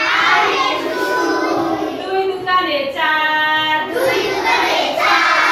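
A class of young children singing together in unison, an action song with rising and falling pitch and brief breaks between lines.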